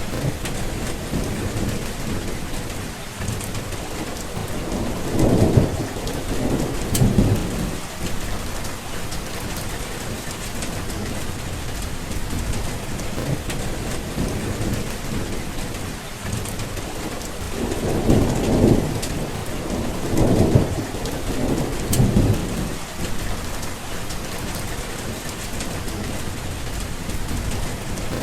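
Steady heavy rain with rolling thunder. Low rumbles swell up about five seconds in, and again in a longer spell of several peals from about eighteen to twenty-two seconds in.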